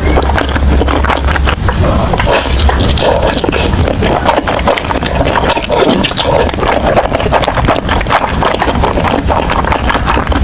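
Close-miked eating sounds: a person chewing and crunching food, with wet mouth noises and a rapid run of crackles and clicks.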